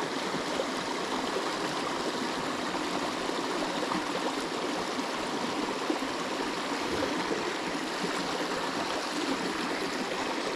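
Small mountain creek running over rocks and a short riffle: a steady rush of water.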